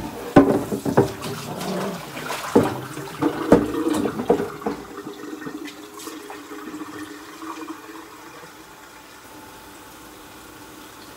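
Water running at a kitchen sink, with a quick run of clattering knocks from dishes and cans over the first five seconds or so. After that only a lower, steady trickle is left.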